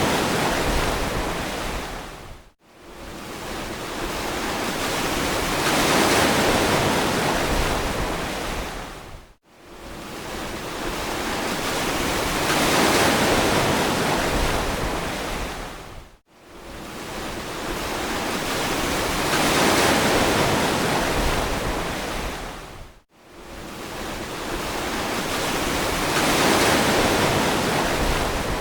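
Ocean surf: a rushing wash that swells and fades four times, evenly about seven seconds apart. Each swell ends in a sudden, brief drop-out to silence before the next begins.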